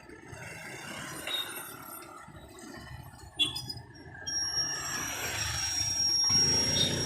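The rear wheel of an old Royal Enfield Bullet 350 Machismo turning, with a noise coming from its rear drum brake: a sharp click about three and a half seconds in, then a steady high-pitched whine. The noise points to a fault inside the rear brake drum, the same fault that makes the brake grip poorly.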